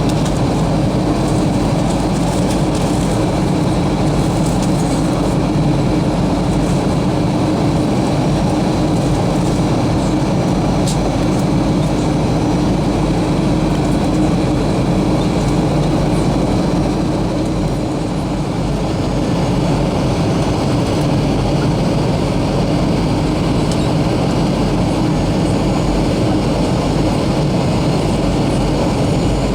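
Steady cabin noise inside a Boeing 737-300 on approach: a constant rush of engine and airflow with a low steady hum, and a few faint ticks.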